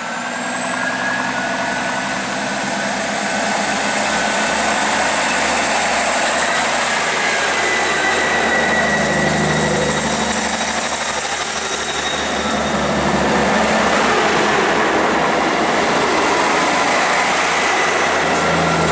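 Two coupled British Rail Class 159 diesel multiple units accelerating away past the camera, their underfloor Cummins diesel engines running under power. A high whine rises through the first six seconds or so. The sound swells in the first few seconds, then holds loud and steady as the carriages pass.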